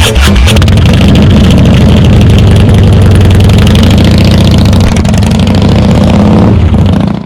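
Harley-Davidson CVO Breakout's V-twin engine catching and running loud and steady at idle, then cutting off suddenly near the end.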